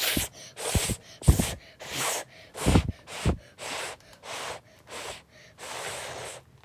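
A person's breath in a run of about ten loud, breathy gasps close to the microphone, two or so a second, with a few low thumps among them.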